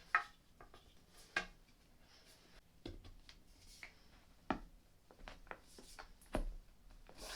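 Scattered light knocks and clicks of flat-pack furniture panels and wooden dowels being handled and fitted together, about five sharp taps over several seconds with quiet rubbing and rustling between them.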